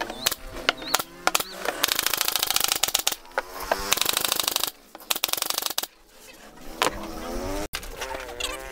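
Pneumatic brad nailer shooting nails into plywood panels: a series of sharp shots, about two or three a second, in the first second and a half. Then comes a loud, fast rattling buzz lasting a few seconds.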